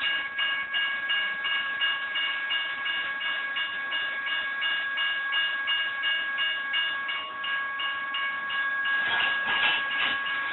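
General Signals Type 1 electronic crossing bells ringing steadily at about four strokes a second while a freight train of semi-trailers on flatcars rolls through the crossing. Wheel clatter grows louder near the end.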